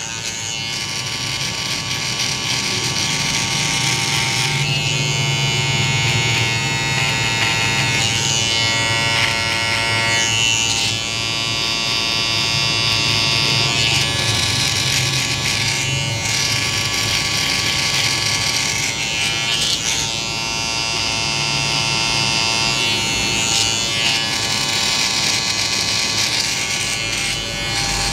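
Electric hair clipper buzzing steadily as it cuts the hairline around the ear and sideburn.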